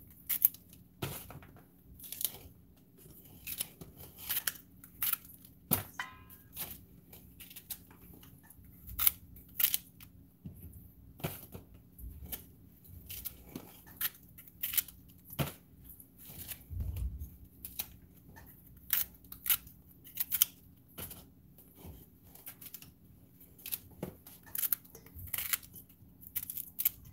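Kitchen knife cutting fresh okra pods in the hand, a short crisp click with each cut as the pieces drop into a stainless steel pot, irregular at about one or two a second.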